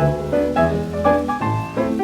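1930 hot dance band playing an instrumental fox trot passage, heard from a 78 rpm record, with a steady beat and quick changing notes.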